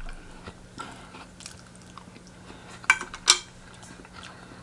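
A person chewing fried chicken close to the microphone: small wet mouth clicks, with two sharper clicks about three seconds in.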